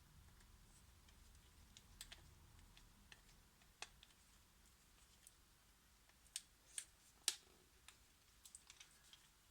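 Faint, scattered clicks and taps of small smartphone parts being handled and fitted back into the phone, with a few louder clicks about six to seven seconds in and a quick run of light ticks near the end.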